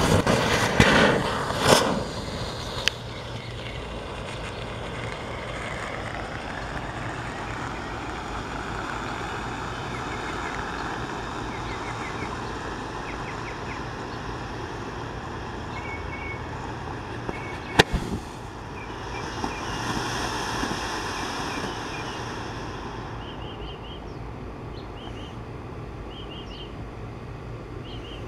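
Cannon Brand Red White Blue smoke firework burning: a loud flaring hiss in the first two seconds, then a steady hiss as the smoke pours out, swelling again for a couple of seconds past the middle and fading near the end. A single sharp crack about 18 seconds in.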